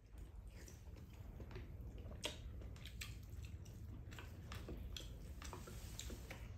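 Quiet eating sounds: spoons scraping and tapping in ceramic rice bowls and chewing, a scatter of small clicks over a low steady hum.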